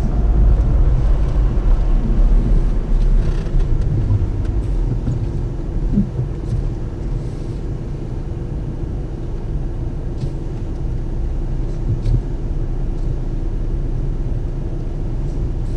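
Car engine and road noise heard from inside the cabin: a low rumble while the car is moving, easing off a few seconds in as it slows, then a steady idle while it stands at a red light.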